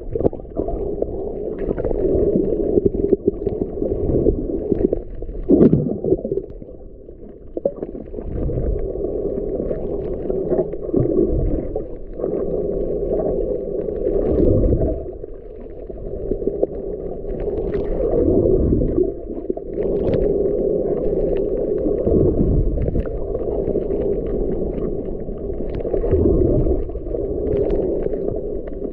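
Muffled underwater water noise picked up by a submerged camera: a continuous low rumble with gurgles and scattered faint clicks, easing briefly a few times.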